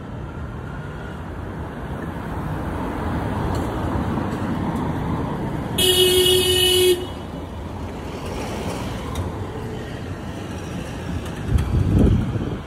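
Street traffic with cars passing. A vehicle horn sounds once for about a second in the middle, and a louder low engine sound from a passing vehicle comes near the end.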